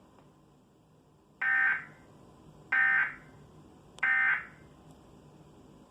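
Emergency Alert System end-of-message (EOM) code: three short bursts of buzzing digital data tones about 1.3 seconds apart, signalling the end of the alert message.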